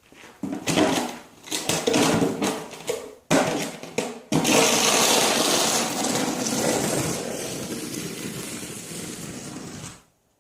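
Snow shovel scraping over the ground in several short, rough strokes, then one long continuous scrape that slowly fades and cuts off abruptly near the end.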